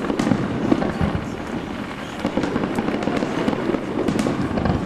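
Fireworks going off: a dense, continuous crackle with scattered sharper pops.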